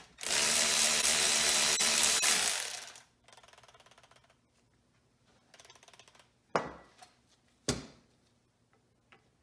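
Cordless electric ratchet running for about three seconds, spinning out a bolt on a Ford Model T differential case. Afterwards come faint light rattles and two sharp metallic knocks about a second apart.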